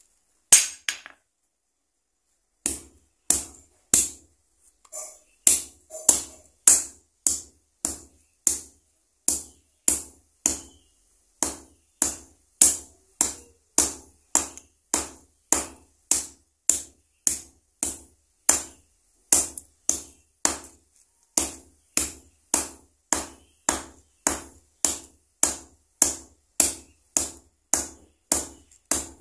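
Hammer pounding a dried cattle leg tendon on a steel anvil block. After a single knock and a short pause, a steady run of sharp blows follows, nearly two a second, which breaks the tendon down into sinew fibres.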